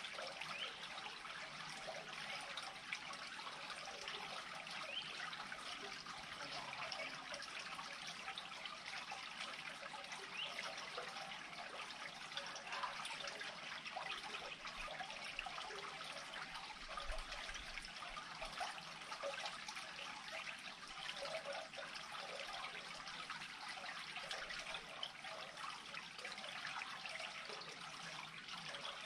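Creek water draining into an unclogged culvert, a steady trickling and dribbling that runs on without a break.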